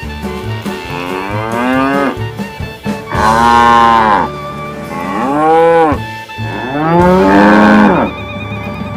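Cows mooing: four long moos, each rising and then falling in pitch. The first is soft; the last three are loud. Steady background music plays underneath.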